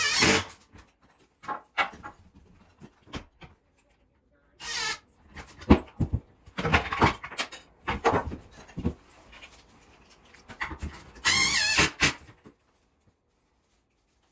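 An animal's short, high, wavering calls, twice, between scattered knocks and clicks of lumber and tools being handled.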